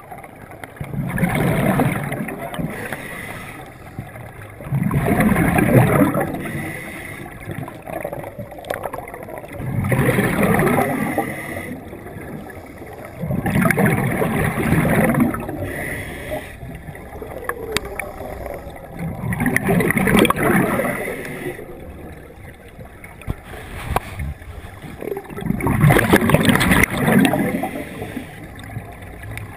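Scuba regulator exhaust: a diver's exhaled breath rushing out as bubbles, heard underwater through the camera housing. About six bubbling bursts, each a second or two long, come one every four to six seconds, with quieter inhalations between.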